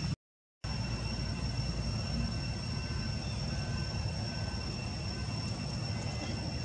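Steady low outdoor rumble with thin, unchanging high-pitched tones over it. The sound cuts out completely for a moment just after the start, then carries on unchanged.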